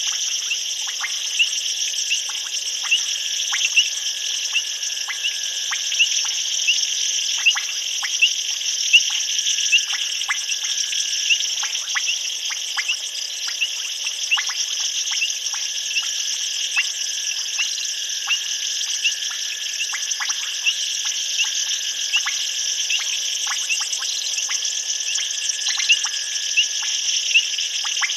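Night chorus of insects and frogs at a waterhole: a steady high shrill with rows of short, regularly repeated chirps, and scattered sharp clicking calls.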